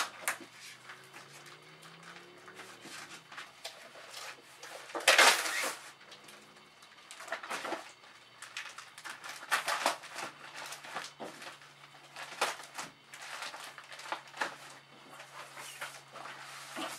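A party decorating kit being unpacked: its packaging and paper and cardboard pieces are handled, giving irregular rustling and crinkling, loudest about five seconds in. A faint steady hum lies underneath.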